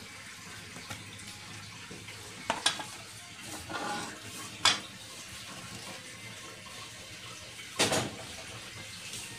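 A serving spoon knocking against a ceramic plate and a wok: three sharp clicks spread out, with a little scraping between them, over a steady low hiss.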